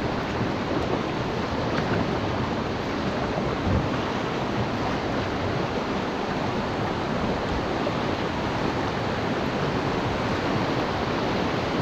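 Whitewater river rapids rushing steadily around a canoe in the current.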